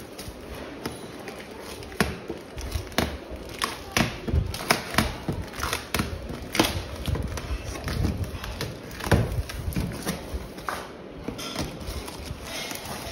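Packing tape being peeled and torn off a cardboard box and the flaps pulled open. It comes as irregular sharp rips, scrapes and thumps of cardboard, several of them louder cracks.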